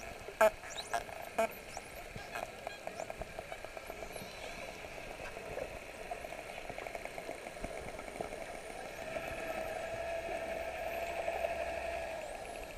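Dolphins heard underwater: sharp clicks, then rapid click trains that run together into a buzz, with faint high whistles sliding up and down. A steady hum comes in about eight and a half seconds in and fades near the end.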